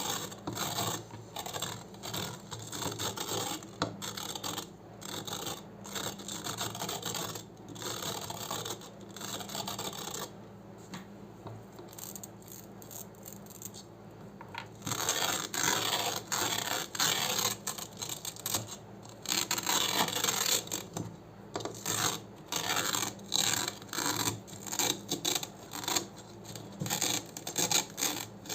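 Hook-and-loop (Velcro) fastener being worked by hand in repeated crunchy rasping strokes with short gaps between them, growing louder and denser about halfway through.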